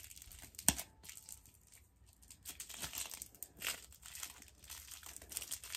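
Small plastic candy wrapper crinkling as fingers pick and pull at it, failing to tear it open, with a sharp click a little under a second in.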